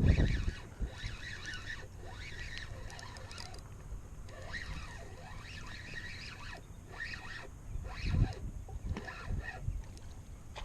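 Birds calling repeatedly in short chirps and slurred calls, with low thumps of wind or handling at the start and again about eight seconds in.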